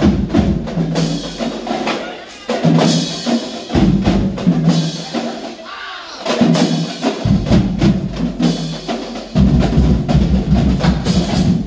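High school marching band playing a march-out: drums and low brass notes in loud phrases, dipping briefly between them.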